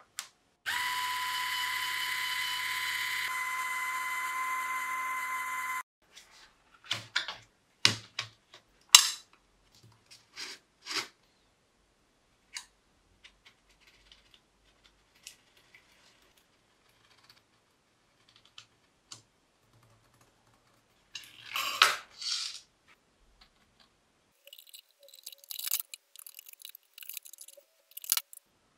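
A small brushed DC motor driving a spindle through a toothed timing belt runs with a steady high whine for about five seconds, then cuts off. Scattered clicks and knocks of handling follow, a louder scraping noise about three-quarters of the way through, and near the end quick snips of scissors cutting cardboard.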